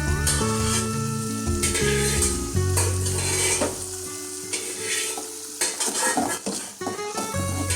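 Food sizzling in a frying pan while a utensil stirs it, clinking and scraping against the pan several times. Instrumental background music plays throughout.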